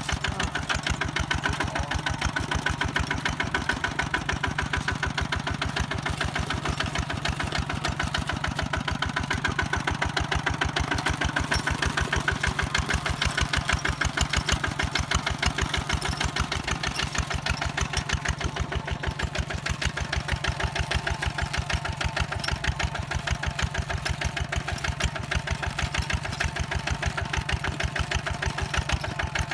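Two-wheel walking tractor's single-cylinder diesel engine running steadily while pulling a disc plough through the soil, with an even, rapid firing beat.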